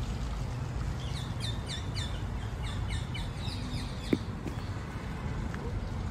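A songbird singing a quick run of short, high, falling chirps, about three a second, for a few seconds, over a steady low background rumble. A single sharp click comes just after the song stops.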